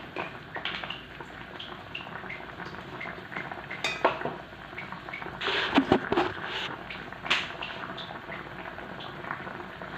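Braised pork leg simmering and bubbling in a frying pan, with a cooking utensil clinking and scraping against the pan. About halfway through comes a louder clatter of knocks.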